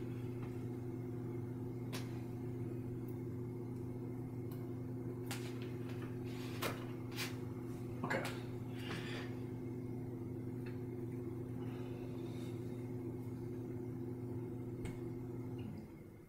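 A steady low hum that cuts off suddenly near the end, with scattered light clicks and taps of a paintbrush working paint.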